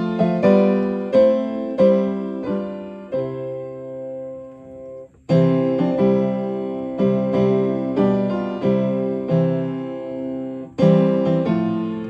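Upright acoustic piano playing a hymn accompaniment in C major: block chords at a steady moderate pace. A chord is held and fades for about two seconds near the middle before the playing picks up again.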